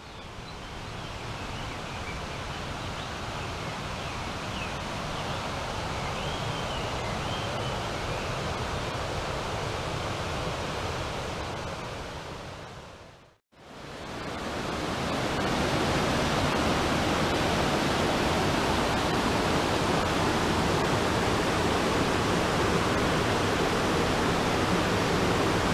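Rushing stream water, a steady rush over rocks; the stream runs high and brown with rain. The sound fades out about halfway and comes back louder.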